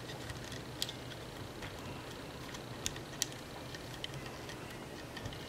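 Faint, irregular light clicks and ticks as fingers push rubber bands down the pegs of a plastic band loom, over a steady low hum.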